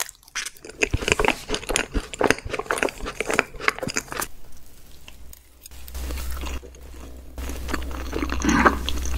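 Close-miked eating: a mouthful of cream cake being chewed, with many quick clicks of lips and tongue. The chewing stops a little before halfway. A steady low hum then comes in, with a few more mouth sounds near the end.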